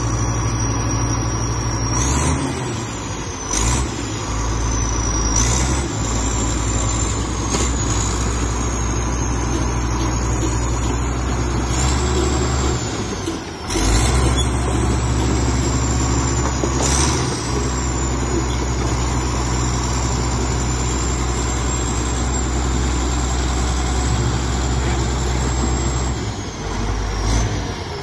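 Komatsu D85ESS-2 bulldozer's diesel engine running steadily and revved several times; with each rev a high whine climbs sharply, then sinks slowly back.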